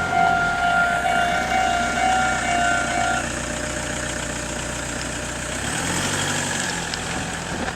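Japanese railway level-crossing warning bell ringing its steady two-tone alarm over a low rumble, then cutting off about three seconds in as the train has cleared the crossing. A low vehicle hum rises near the end.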